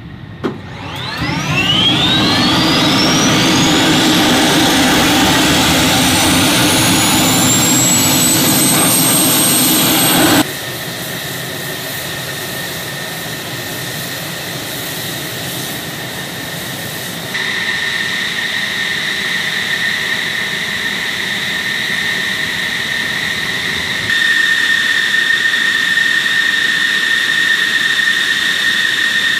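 F-16 fighter's jet engine spooling up on start: a whine rising steeply in pitch over about nine seconds. After abrupt cuts it settles into a steady high whine at idle. A short sharp click comes just after the start.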